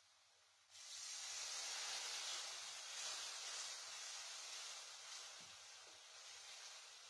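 Onions and spices sizzling in a hot aluminium pot as water goes in. The hiss starts suddenly about a second in and slowly dies down.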